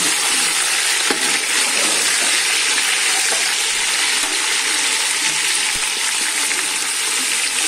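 Raw chicken pieces frying with browned onions in hot ghee in a metal pot: a steady sizzling hiss, with a few faint knocks of the spoon against the pot.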